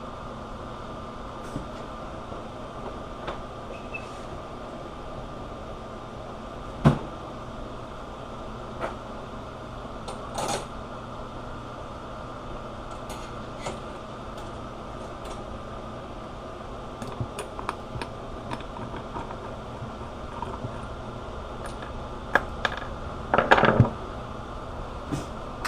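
Scattered clicks and clinks of metal tools and small parts being handled on a workbench, over a steady background hum. There is a sharp knock about seven seconds in and a short run of clatter near the end.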